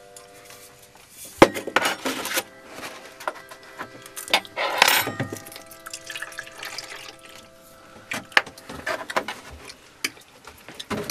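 Tableware being handled as food is served and seasoned: irregular knocks and clinks of plates, utensils and shakers, with two short bursts of rustling or scraping about one and a half seconds and about four and a half seconds in.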